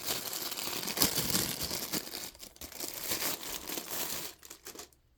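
Packaging crinkling and rustling as a small item is unwrapped and handled, a dense run of crackles that dies away near the end.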